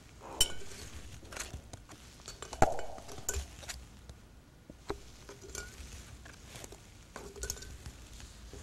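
Light clinks and taps of a small tea set and cards being handled on a tabletop, with one sharper knock a little over two and a half seconds in.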